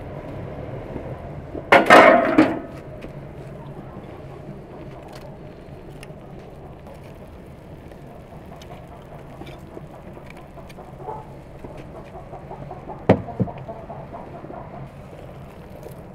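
Chicken and potatoes sizzling on a hot stone slab over a wood fire. About two seconds in, a round metal lid is lifted off and set down with a short loud clatter, and later metal tongs click sharply against the stone.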